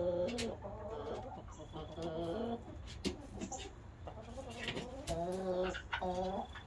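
Domestic hens murmuring on the roost as they settle for the night: about five low, drawn-out, wavering calls, with a few sharp taps in between.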